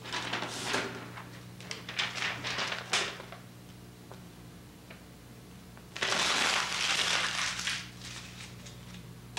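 Paper being handled and crumpled in several short rustling bursts, then a louder rustle lasting about two seconds about six seconds in. A steady low electrical hum runs underneath.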